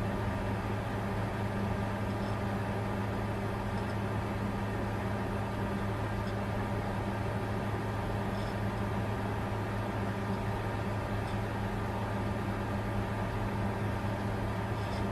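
Bitcoin mining computer running steadily: an even whir of cooling fans with a low hum and a few steady tones.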